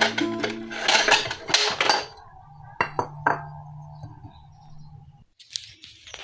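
Kitchen dishes and containers clinking and clattering as they are handled: a run of knocks in the first two seconds, then two sharper clicks around three seconds in. A background song with guitar plays under it and stops about five seconds in.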